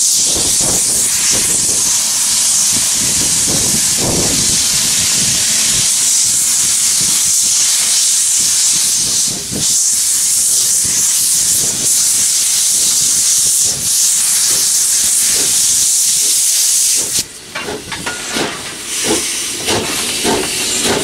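Essex Terminal Railway No. 9, a 1923 Montreal Locomotive Works 0-6-0 steam switcher, passing close by with a loud, steady hiss of steam blowing from around its cylinders. About seventeen seconds in the hiss drops away and a rapid clatter of wheels on the rails takes over.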